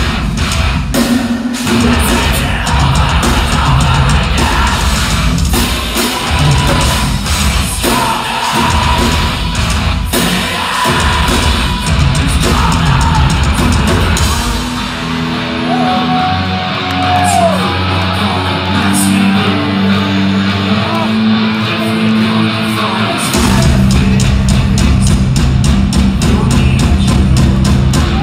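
A metalcore band playing live: distorted guitars, pounding drums and singing and yelled vocals. About fifteen seconds in the drums and bass drop away, leaving sustained notes and a voice, and the full band comes crashing back about eight seconds later.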